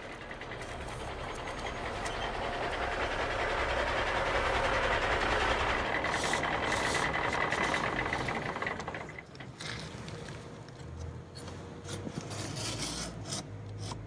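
Plastic toy truck wheels rolling steadily, louder for a few seconds and then fading out. Then a few light scrapes and clicks as the model's wooden sliding doors are moved along their rail.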